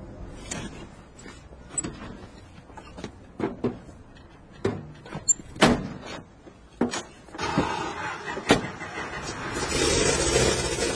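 A string of knocks and clicks, with a louder bang a little past halfway, then a car engine starts running and grows louder near the end.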